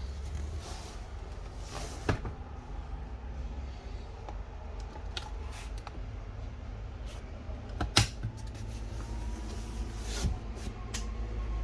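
Power lumbar and recline controls of an RV sofa being worked: a few sharp clicks over a steady low rumble, with a faint steady motor whine starting near the end.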